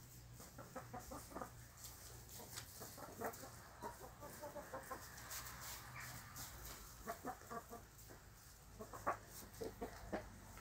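A flock of Amrock chickens clucking softly in short runs of notes, with scattered light clicks and rustles as they peck at snow and straw.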